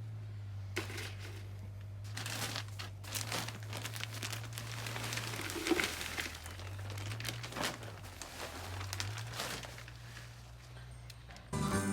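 Irregular crinkling and rustling from hands working potting soil and flowers into a hanging basket. A low steady hum runs underneath.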